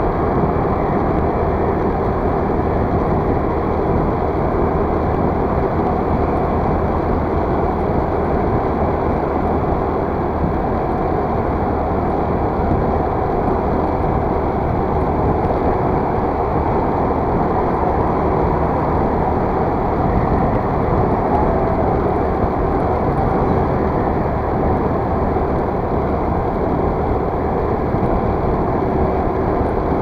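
Steady rush of wind and engine hum from a motor scooter being ridden through city traffic at a constant speed.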